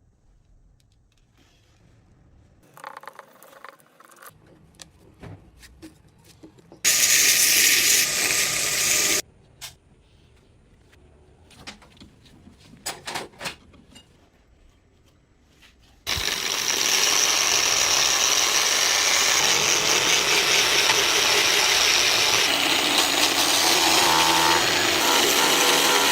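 Power tool running in a workshop, with a high whine over a rough noise: a short run of about two seconds, scattered light clicks and knocks, then a long steady run from about sixteen seconds in.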